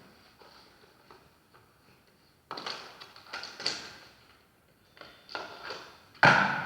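Shotgun being handled and fired: a few clacks and rattles from working the gun, then one sudden sharp, loud shot near the end.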